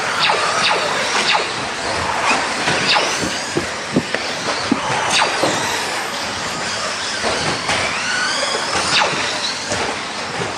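A pack of radio-controlled race trucks and cars running on a track: a steady din of small motors and tyres, with motor whines rising and falling as they accelerate and brake, tyre squeal, and sharp clicks and knocks throughout.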